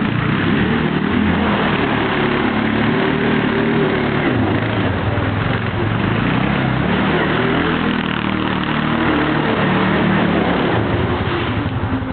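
Kymco MXU 500 ATV engine running, its pitch rising and falling several times as the revs change.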